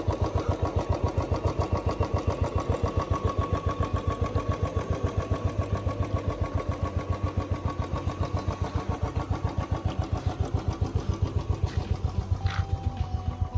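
Royal Enfield Bullet's single-cylinder four-stroke engine idling, a steady run of evenly spaced exhaust thumps.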